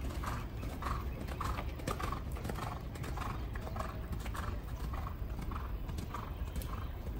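Horse cantering on a sand arena: hoofbeats in a steady rhythm of about two strides a second.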